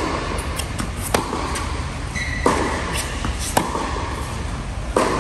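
Tennis ball struck by rackets and bouncing during a baseline rally, a sharp pop about every second, each echoing in the large hall. A brief high squeak a little after two seconds in.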